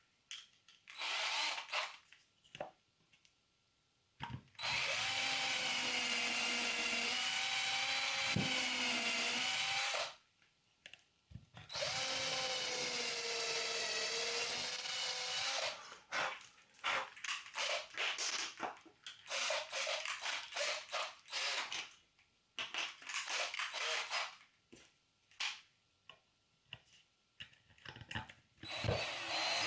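Power drill driving screws into wood: two long runs of about five seconds each, the pitch wavering and sinking as the screw pulls in, then a string of short trigger bursts.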